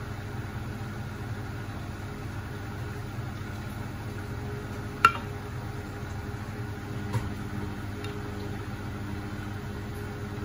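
Beko WMB71642W washing machine running mid-cycle with a steady motor hum. A single sharp click about five seconds in, and a fainter one about two seconds later.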